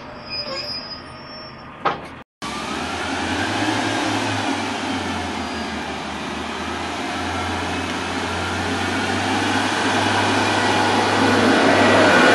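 Northern Class 142 Pacer diesel railbus pulling away from the platform. Its diesel engine hums steadily over the rumble of its wheels, growing louder as the unit draws close and passes near the end.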